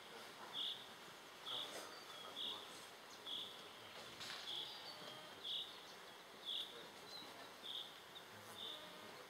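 Faint, regular chirping of an insect: a short high chirp about once a second, keeping an even beat.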